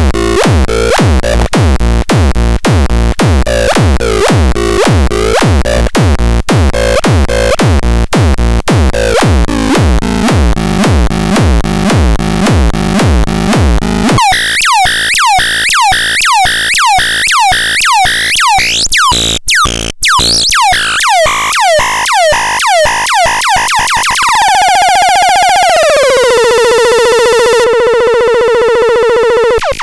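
Minimal techno played on an electronic music production station: a drum machine beat with synth for the first half. Then the beat drops out, leaving a run of short synth notes, each falling in pitch, that speed up until they merge into one held tone that glides down in steps and holds.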